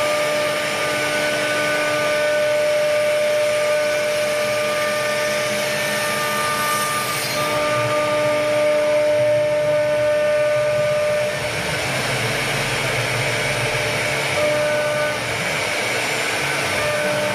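CNC router spindle running and cutting wood: several steady whining tones over a rushing cutting noise. The tones shift and a lower rumble comes in about eleven seconds in.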